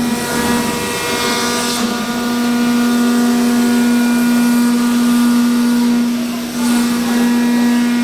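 Large CNC milling machine's BT50 spindle running steadily while cutting wood, a loud constant hum with a faint hiss that swells twice.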